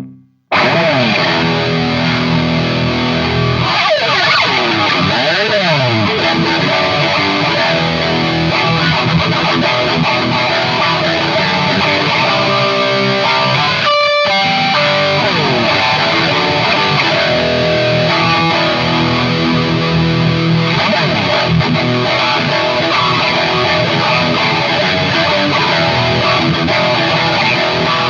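Electric guitar played with a distorted tone through an M-Vave Mini Amp preamp pedal: steady, dense playing with sliding notes about four to six seconds in and a brief break about fourteen seconds in.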